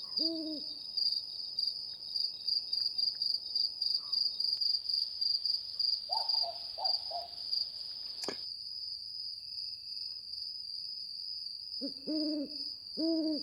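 An owl hooting in short series at the start and again near the end, with three shorter, higher hoots around the middle, over a steady high-pitched trill of night insects. A single sharp click about eight seconds in.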